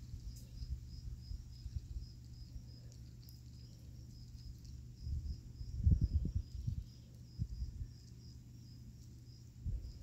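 An insect chirping steadily with a high, evenly repeated chirp. Low muffled thumps and rustles come around the middle and again near the end.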